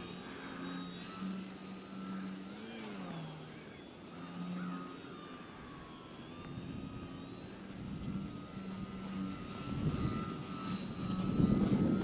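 Twisted Hobbys MXS-C foam RC aerobatic plane's electric motor and propeller buzzing in the air, its pitch shifting and gliding as the throttle changes. Gusty wind noise on the microphone builds toward the end.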